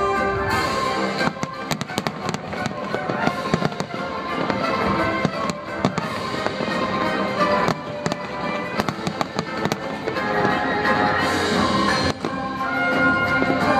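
Aerial fireworks going off in quick succession, many sharp bangs and crackles, with music playing underneath.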